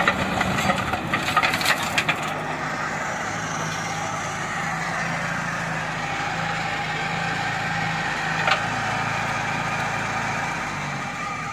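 Kubota MU5501 tractor's diesel engine running under load while its 7 ft rotavator churns dry soil: a steady rumbling hum with a crunching, crackling noise over it. There are dense crackles in the first couple of seconds and one sharp click about eight seconds in.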